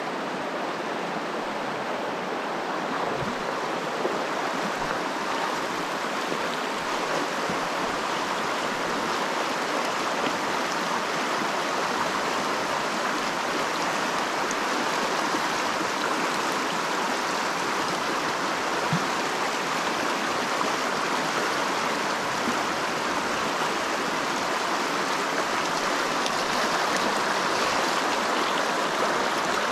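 Fast, shallow river water rushing steadily over rocks in a riffle of pocket water.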